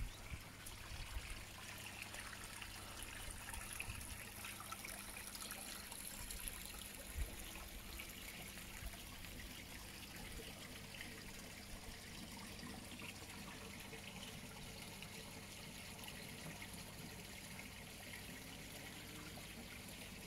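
Water trickling and running steadily down a small rock-lined garden stream into a pond, with a faint low hum underneath.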